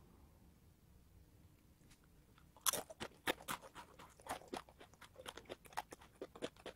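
A person biting into and chewing crispy, sugar-glazed fried instant-ramen snack pieces (ramen-ttang): sharp, irregular crunches, several a second, starting about two and a half seconds in.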